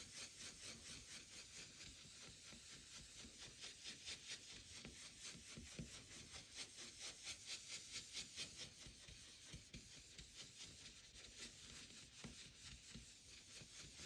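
Blending brush rubbing ink onto cardstock, faint, dry scratchy strokes in a quick, even rhythm of several a second.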